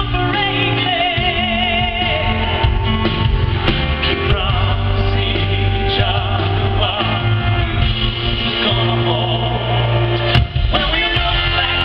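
Live pop ballad duet: a woman and a man singing with a full band of drums, bass and guitar, heard from the audience in an arena.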